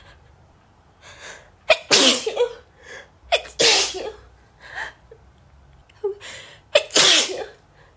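A woman sneezes three times in a row in a sneezing fit, each sneeze preceded by a short catching in-breath. The sneezes come about a second and a half apart, then a longer gap before the third, with a small breath between.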